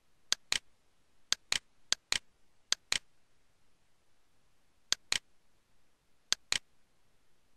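A computer mouse button clicked six times, each click a sharp press followed about a fifth of a second later by its release. Four clicks come close together in the first three seconds, then one near the middle and one near the end.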